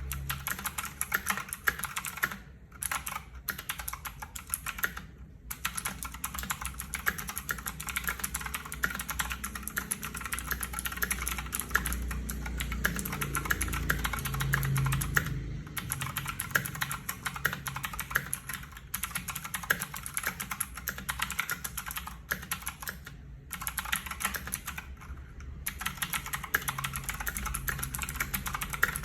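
Fast, continuous typing on a mechanical keyboard with clicky Huano Blue switches, dense rapid key clicks broken by a few brief pauses.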